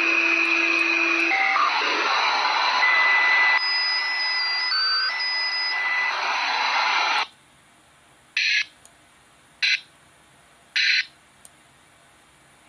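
A radio receiver scanning frequencies: a hiss of static with steady tones that jump in pitch from step to step, cutting off suddenly about seven seconds in. Then, over near silence, three short bursts of static come about a second apart.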